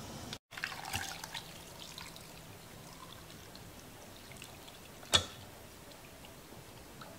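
Hot chicken broth poured from a stainless steel pot through a metal mesh strainer into a measuring cup, splashing at first and then trickling and dripping. A single sharp metal clink about five seconds in.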